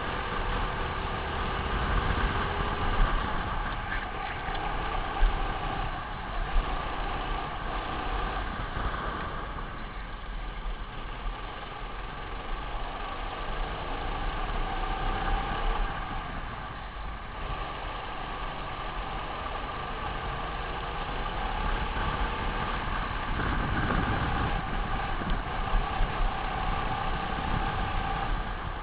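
A racing kart's engine heard from on board, its pitch rising and falling as the throttle is worked through the corners, with a low rumble of wind on the microphone and a few sharp knocks from the chassis.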